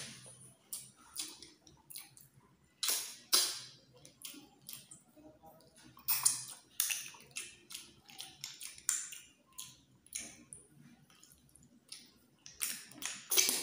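A person eating freshwater snails cooked in coconut milk: short sucking sounds as the meat is drawn out of the shells, mixed with small clicks of shell and chewing, in irregular bursts.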